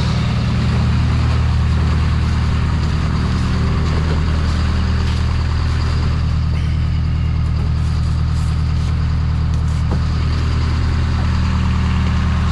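LS-swapped Chevy truck V8 idling steadily on a cold start in sub-freezing weather.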